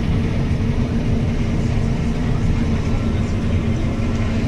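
John Deere T670i combine harvester running while harvesting, heard from inside the cab: a steady low engine and machinery drone with a constant hum.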